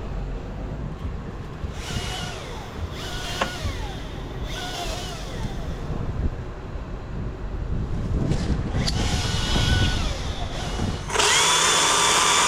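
Chainsaw running at full throttle, a loud steady high-pitched whine that starts suddenly near the end. Before it, low rumbling and scraping with a few brief falling whistles.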